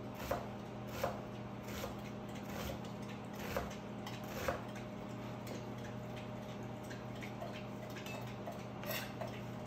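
Large kitchen knife dicing an onion on a cutting board: sharp taps of the blade on the board, about one a second for the first few seconds, then fewer, with a couple more near the end.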